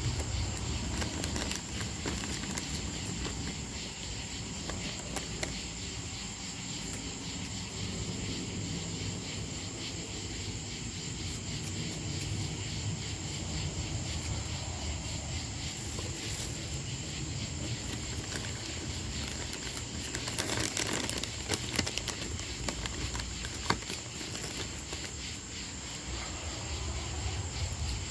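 Steady high-pitched insect chorus over a low rumble, with scattered clicks and a brief rustling burst about twenty seconds in.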